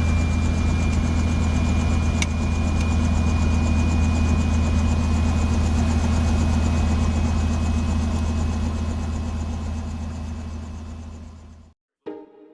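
Aircraft engine drone, steady and loud, with a thin steady whine above it and a single click about two seconds in. It cuts off abruptly near the end.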